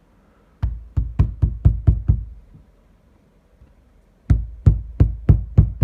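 Ceramic tile being tapped down into fresh tile adhesive: two runs of about six quick knocks each, a couple of seconds apart, bedding the tile in place.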